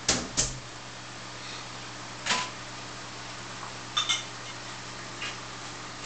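Steady low electrical hum and hiss of running aquarium equipment (filter and pump), with several short sharp clicks scattered through it.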